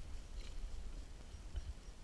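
Low rumble with a few soft knocks: wind and handling noise on a GoPro microphone as a freshly landed cod is handled aboard a kayak.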